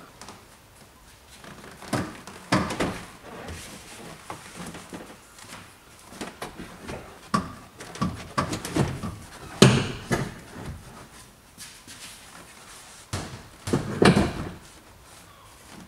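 Irregular knocks, clunks and rustling from a person climbing into, shifting in and reaching around a fixed-back bucket seat in a car's cabin, with the loudest knocks about ten seconds in and near the end.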